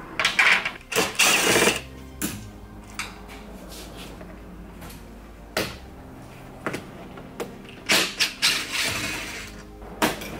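Clatter and clicks of plastic body panels and hand tools as a Honda ADV 150 scooter's side panels are unscrewed and pried loose: a burst of rattling in the first two seconds, a single sharp knock about halfway and another cluster near the end. Steady background music plays underneath.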